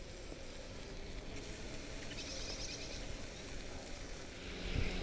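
Bicycle rolling along a path, with a steady low rumble of tyres and wind on a camera mounted on the bike. A faint high chatter comes in briefly about two seconds in.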